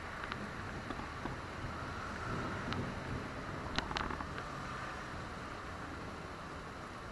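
Steady rain falling during a thunderstorm, a continuous hiss with a few sharp ticks of drops striking something about a quarter second in, near the middle and around four seconds in.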